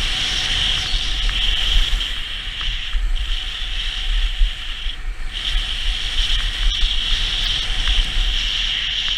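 Skis sliding over packed snow with a steady scraping hiss that drops out briefly twice, about three and five seconds in. Low wind rumble on the microphone runs underneath.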